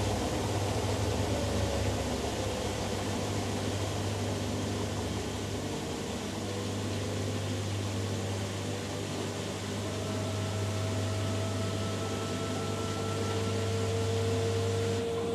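Front-loading washing machine on its final spin: a steady motor hum under a whine whose pitch drifts slowly, with a stronger whine coming in about ten seconds in.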